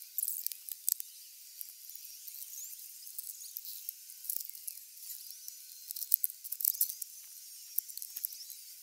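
Carpet being cut and torn out of a car floor: a run of thin, high-pitched scratching, clicking and squeaking, with louder clusters of clicks near the start and again after about six seconds.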